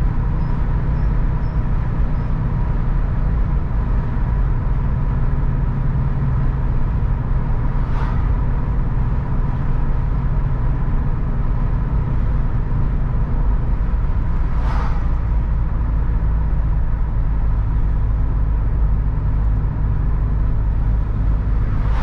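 Steady low road and tyre rumble heard inside a Citroën's cabin as it drives along a worn, patched forest road, with two brief swishes about eight and fifteen seconds in.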